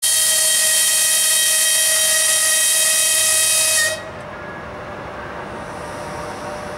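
One long blast of an EP1M electric locomotive's air whistle: a loud, high-pitched tone with a strong hiss, cutting off suddenly about four seconds in and leaving a quieter steady noise.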